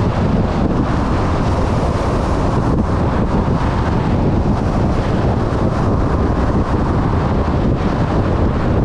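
Steady wind roar buffeting the microphone of a camera riding on a moving motorcycle.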